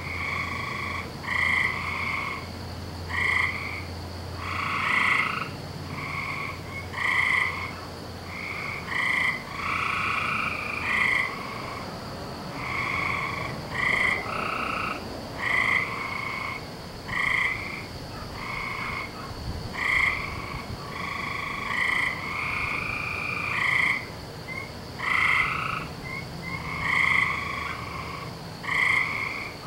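A chorus of frogs calling at night: short croaking calls repeat about once a second, several voices overlapping, over a steady high-pitched hum.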